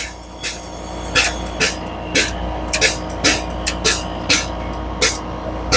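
FBD frozen-beverage (Slurpee) machine running with a steady hum while its barrels fill with product, with short sharp ticks or spurts about two or three times a second.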